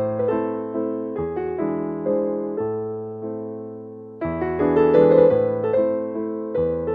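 Slow romantic piano music: soft chords and melody notes struck and left to fade, with a fresh chord coming in about four seconds in.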